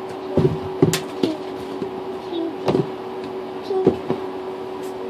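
Hands rummaging through a pile of foam squishy toys in a bathtub, with irregular knocks and clatter as toys are pushed aside and moved, over a steady low hum.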